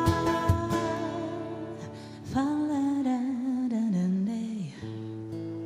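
Closing bars of an acoustic guitar song: strummed guitar, then a wordless sung line that wavers and falls, ending on a final guitar chord left ringing and slowly fading.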